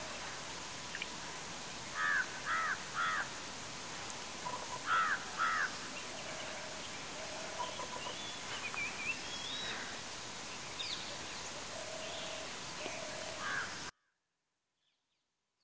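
Birds calling over a steady outdoor hiss: a crow caws three times about two seconds in and twice more about five seconds in, with other small bird calls between. The sound cuts off suddenly near the end.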